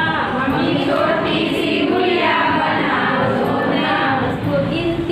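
A group of women singing together, many voices at once.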